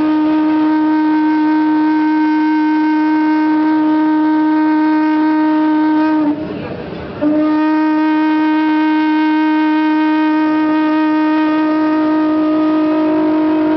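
Conch shell (shankha) blown in two long, steady blasts on one pitch, with a short breath break about six seconds in. This is the ritual conch call that opens a devotional dance.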